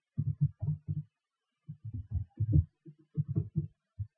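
Computer keyboard typing: quick runs of short, dull keystroke thuds with brief pauses between runs.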